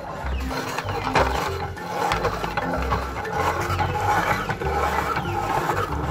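Meat grinder crunching and grinding papaya: a dense, crackling mechanical rattle. Background music with a repeating bass line plays under it.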